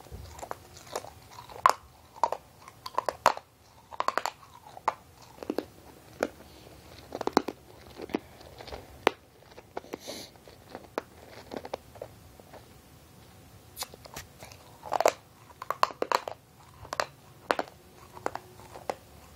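A mouthful of sour Ice Breakers candies being crunched and chewed: irregular crunches and wet mouth clicks, coming in uneven clusters.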